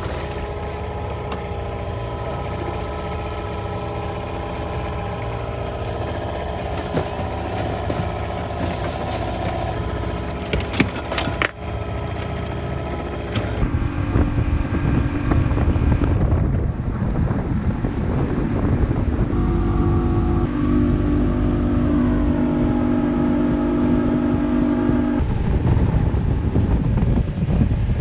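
Motorboat engine running steadily; about halfway through it gets louder, with a heavier low rumble.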